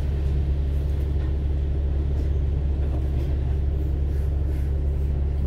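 Double-decker bus engine idling with a steady low rumble, heard from inside the upper deck while the bus stands still.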